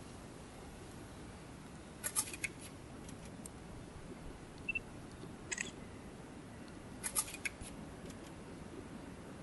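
Small plastic clicks from a Panasonic Lumix ZS20 compact camera's buttons and mode dial being worked: a cluster of several clicks about two seconds in, another around the middle and a third about seven seconds in. A brief faint beep comes just before the middle clicks, over a steady low hiss.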